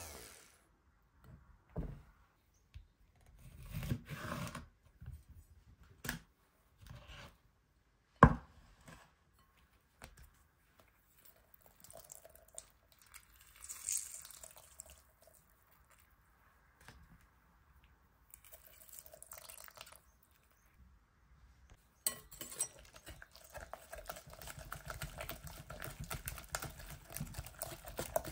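Quiet kitchen handling sounds: scattered soft taps and a single sharp click about eight seconds in. In the last few seconds comes a steady run of a whisk stirring wet, blended mint paste round a glass bowl.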